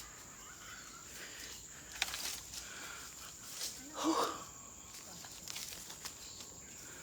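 Forest ambience with a steady high insect trill, with a few faint footsteps and a short louder sound about four seconds in.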